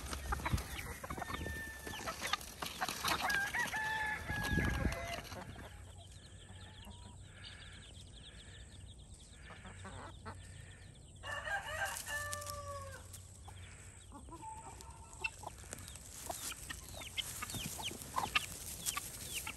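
A flock of chickens clucking and calling, with short pitched calls in the first few seconds and another burst of calls about twelve seconds in.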